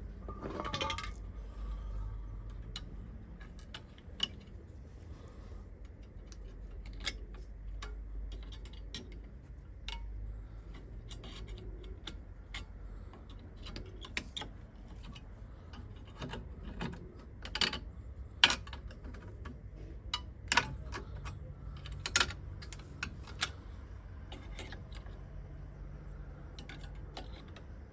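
Light metallic clicks and clinks of small brake hardware being handled as the caliper bracket on a front disc brake is fitted, scattered irregularly with a cluster of sharper clicks past the middle.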